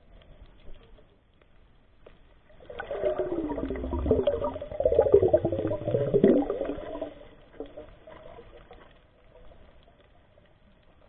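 Bubbling and gurgling water heard underwater, muffled and close to the camera, loud for a few seconds in the middle and fainter before and after.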